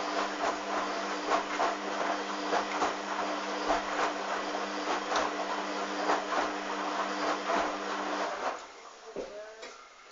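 Hoover Dynamic washing machine running with a steady hum and rattling, clicking whirr, which stops abruptly about eight seconds in.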